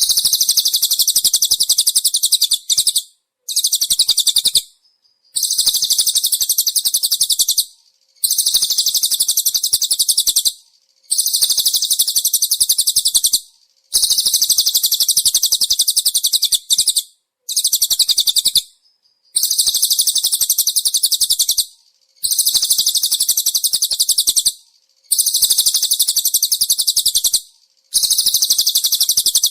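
A small songbird's rapid, high-pitched trilled song ('tembakan'), as used in masteran recordings to tutor cage birds: about ten dense bursts of two to three seconds each, separated by short gaps.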